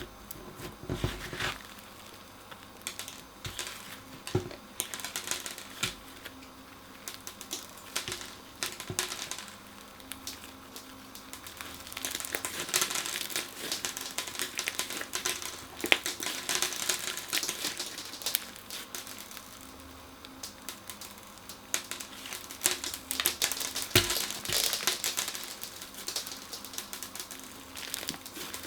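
Crunchy slime being squeezed and worked, giving dense crackling clicks that come in bursts, louder in the middle and near the end.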